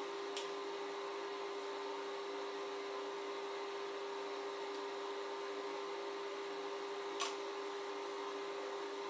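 A steady machine hum with one constant tone, such as a small motor or appliance running, with two short faint clicks, one about half a second in and one near the end.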